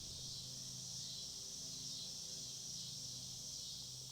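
Steady high-pitched insect chorus, like crickets, with faint low held tones underneath.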